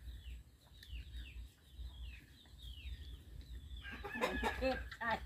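Chickens calling: short calls falling in pitch, repeated about twice a second, then louder clucking from about four seconds in.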